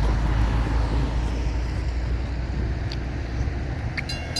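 Steady low rumble of vehicle noise. About four seconds in, a railroad grade-crossing bell starts ringing in quick, regular strokes: the crossing is activating for an approaching train.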